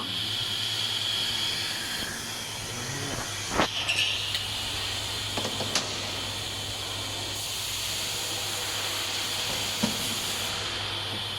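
Steady hiss over a constant low hum, with a few short sharp clicks and knocks scattered through it.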